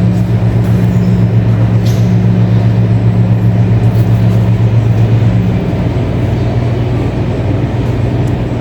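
Airliner engines running with a loud, steady low drone and a noisy rumble underneath; the hum drops and changes a little about five and a half seconds in.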